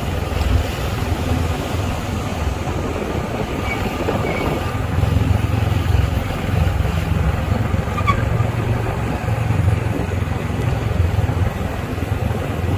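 Steady low rumble of a motor vehicle on the move, with engine and road noise.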